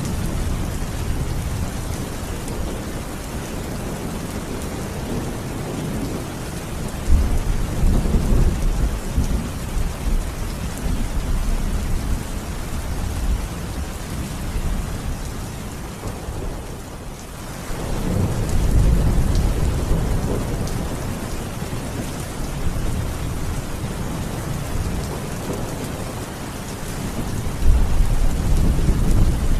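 Steady heavy rain, with low rolling thunder that swells about a quarter of the way in, again just past halfway after a brief lull, and once more near the end.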